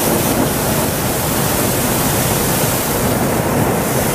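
Hot-air balloon's propane burner firing overhead: a loud, steady rushing hiss.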